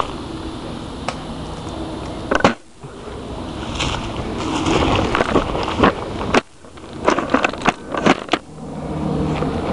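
Footsteps pushing through tall grass and brush, with leaves rustling and twigs cracking in a quick run of sharp snaps near the end.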